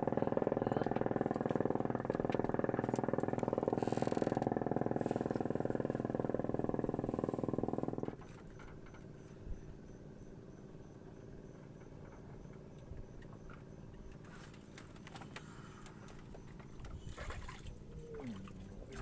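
An engine running steadily at an even speed, which cuts off suddenly about eight seconds in, leaving only faint background sound.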